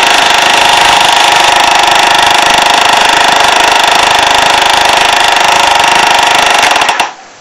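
Small electric motor and plastic gears of a battery-powered Trackmaster toy train set whirring steadily with a high gear whine. It cuts off with a few clicks about seven seconds in, as it is switched off.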